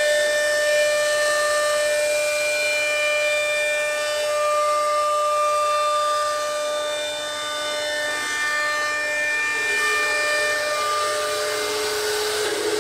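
CNC router spindle cutting a panel pattern into an MDF door blank: a steady high whine whose overtones come and go as the cut moves. About three-quarters of the way through, the main tone drops to a lower pitch.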